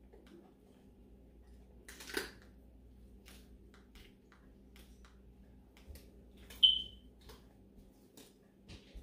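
Bare hands rubbing seasoning paste over and under the skin of a raw whole turkey: faint wet squishes and rubbing, with one louder bump about two seconds in, over a low steady hum. A single short high-pitched beep about two-thirds of the way through is the loudest sound.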